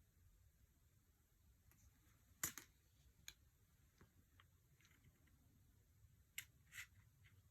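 Oracle cards being handled in a quiet room: a few faint taps and light slides of card stock. The loudest is a sharp tap about two and a half seconds in, with two more light card sounds a second apart near the end.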